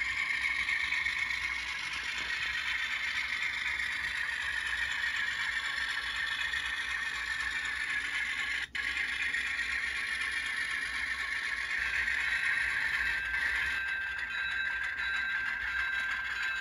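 Model freight train running along the layout's track: a steady whir from the locomotive's electric motor and gears, with the wheels rattling and clattering on the rails, its pitch drifting slowly. The sound cuts out for an instant about halfway through.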